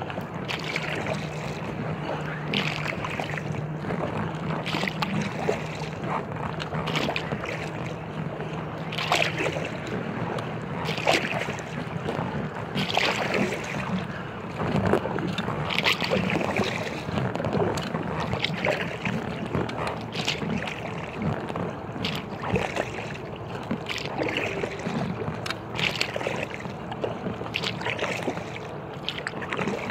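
Kayak paddle strokes splashing in the river, one about every one and a half to two seconds, over a steady rush of water and wind. A low steady hum is heard during the first third and then fades out.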